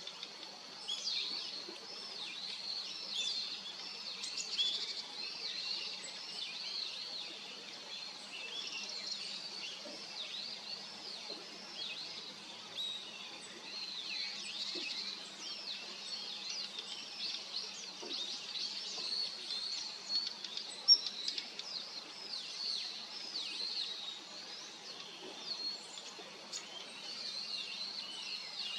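Small songbirds chirping continuously, with many short high calls overlapping, among them the calls of a female Daurian redstart. One sharp click stands out about two-thirds of the way through.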